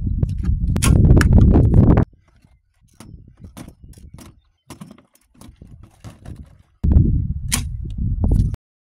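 Recurve bow being shot: sharp snaps of the string on release over heavy wind buffeting the microphone. A much quieter stretch in the middle holds a few light knocks, and the sound cuts off shortly before the end.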